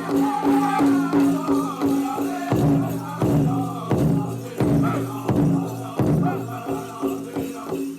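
Powwow drum group singing in chorus over the steady beat of a big drum, with jingling rattles; the beats come about every two-thirds of a second and hit harder through the middle.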